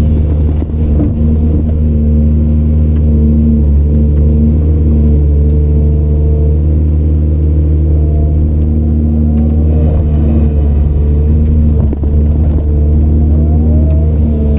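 Heavy diesel engine of an earthmoving machine running steadily and loud, with a few short rising and falling whines after about ten seconds.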